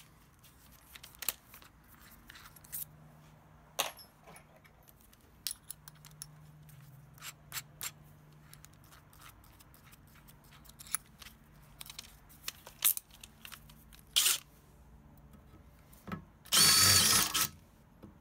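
Light metal clicks and clinks of a drill bit being handled and changed, then near the end a power drill runs for about a second, boring into the aluminium deck of a Xiaomi M365 scooter to enlarge a hole step by step with bigger bits.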